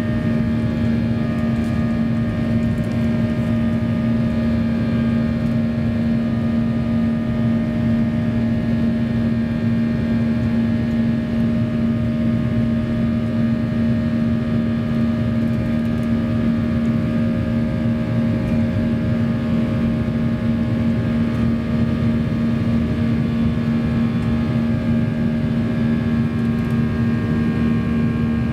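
Boeing 737-800's CFM56-7B turbofan engines at climb power, heard inside the cabin just after takeoff: a steady drone with a strong low hum and several fainter steady tones above it.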